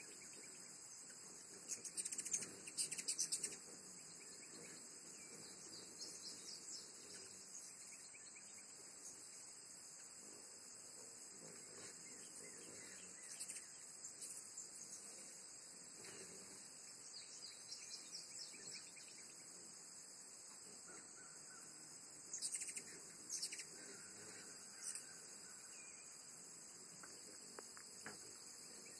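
A steady, high-pitched insect chorus of crickets or katydids, with short bursts of high bird chirping and chattering several times, loudest a couple of seconds in and again a little past the twenty-second mark.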